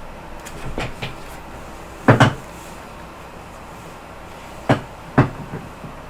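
A few short knocks and thuds of objects being handled, the loudest a quick double knock about two seconds in, then two more knocks near the end.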